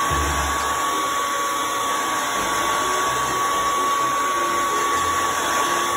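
Conair hand-held hair dryer running steadily on one setting: a constant rush of blown air with a steady high whine.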